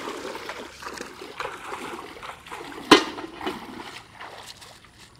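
Water splashing and sloshing as bare feet wade through shallow floodwater, with one sharp slap just before three seconds in.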